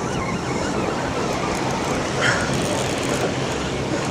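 Surf washing against the rocks of a jetty, with wind on the microphone: a steady rushing noise.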